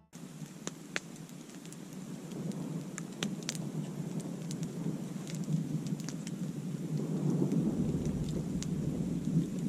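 Thunderstorm: steady rain with a low rumble of thunder that grows louder over the first seven seconds or so, and scattered sharp ticks of drops striking close by.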